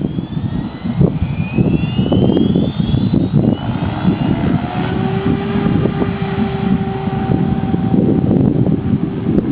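Helicopter running, a loud fluttering rumble with wind buffeting the microphone. A faint rising whine comes in over the first few seconds, and a steady whine holds from about halfway on.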